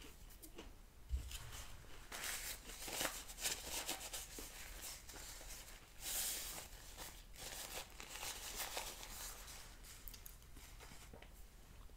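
Paper napkin rustling and crinkling as it is unfolded and wiped across the mouth, in several soft spells.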